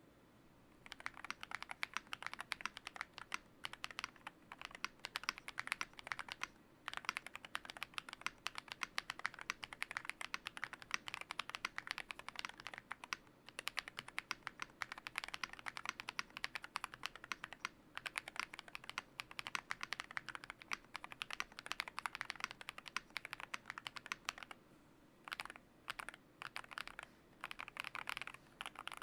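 Typing on a Yunzii YZ98 mechanical keyboard with lubed Akko Lavender Purple Pro switches, tape-modded and foam-filled: fast, continuous key presses. The typing pauses briefly about seven seconds in and again around twenty-five seconds in.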